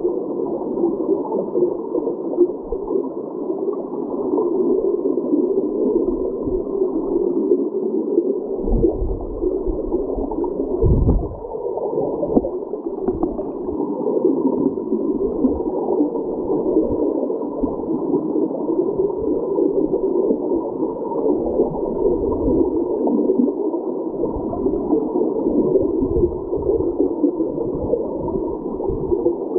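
Creek water heard from underwater: a steady, muffled rushing and gurgling with no high tones, and two low thumps near the middle.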